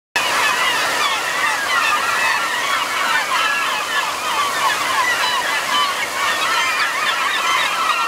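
A large flock of gulls calling without a break, many short cries overlapping, over the steady rush of a stream's rapids.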